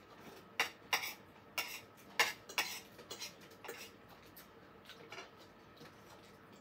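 Metal fork clinking and scraping on a ceramic plate while eating: several sharp clinks in the first three seconds, then fainter taps.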